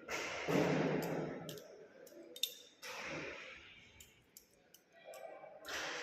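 Balisong being flipped, its handles and blade clicking against each other in a string of short, irregular clicks, with two longer bursts of noise near the start and near the end.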